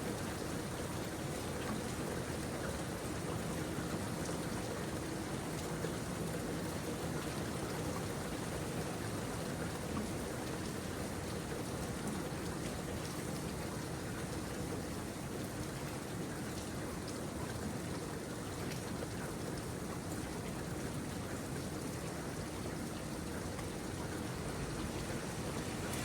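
Steady rain falling, an even hiss of many drops with faint individual ticks of drops hitting surfaces.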